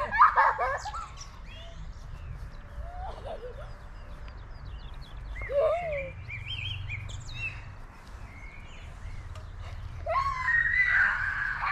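Small birds chirping and calling over a steady low rumble of background noise. Louder calls come about the start and again near the end.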